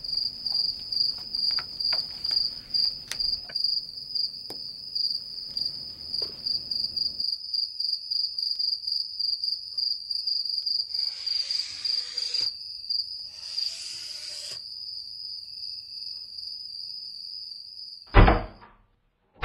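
Crickets chirping in a steady, pulsing high trill, with two short hissing rushes partway through and a loud thump near the end.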